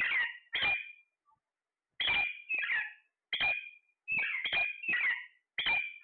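Alexandrine parakeets calling: about nine short, harsh squawks, many in quick pairs, with a pause of about a second near the start.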